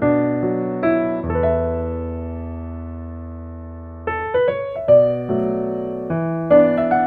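Background music: an electric piano playing chords, with a long held chord fading out before the playing picks up again about four seconds in.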